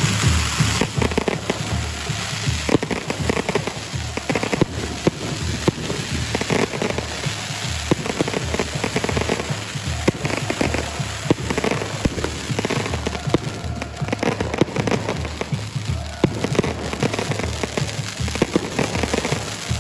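Rapid, irregular crackling of firecrackers going off over background music with a steady bass beat.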